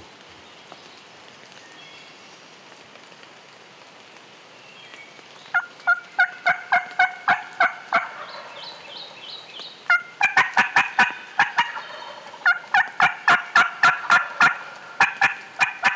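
Turkey calling: after a few quiet seconds, several loud runs of rapid, choppy notes, about four a second, each run lasting two to three seconds.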